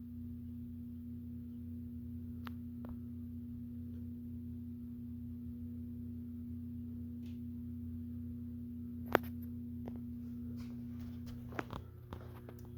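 42-inch Design House hugger ceiling fan running on a variable-speed control, its motor giving off a loud steady hum, which the owner calls very loud on the variable speed. There is a sharp click about nine seconds in, and a few more clicks near the end as the hum shifts slightly.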